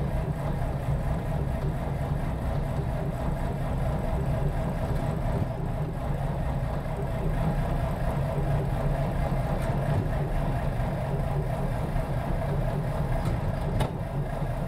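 1938 Chrysler's engine being cranked over steadily by the starter without firing. The mechanical fuel pump is still working to lift fuel back up to the carburettor after the car sat for weeks.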